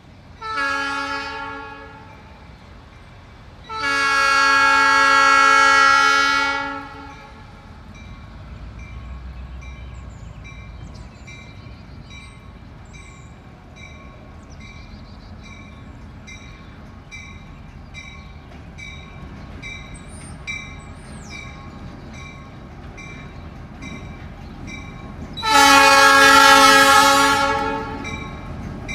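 Diesel locomotive's multi-chime air horn sounding a short blast, then a long one, then a second long blast near the end as it approaches the crossing. Between the blasts the engine runs low and a bell rings in a steady, even rhythm, typical of a locomotive bell rung at a crossing.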